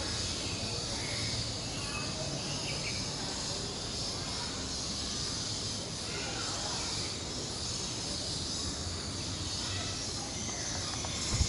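Steady, high-pitched buzz of an insect chorus, over a low background rumble.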